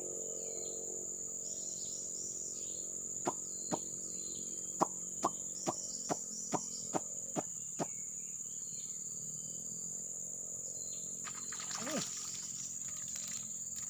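Steady high-pitched drone of forest insects such as crickets or cicadas. Between about three and eight seconds in there is a run of about ten sharp knocking notes, roughly two a second. Near the end a fish splashes at the surface as it strikes the bait.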